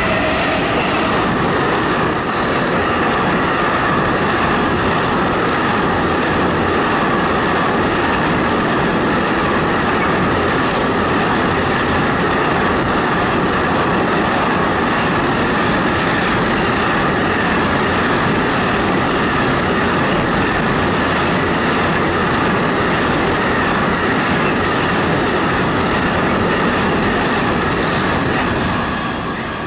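A long freight train of tank wagons running past at speed: a steady, loud rumble of wheels on the rails with a thin, steady high wheel squeal over it and a couple of brief higher squeaks. The noise drops off near the end as the last wagons go by.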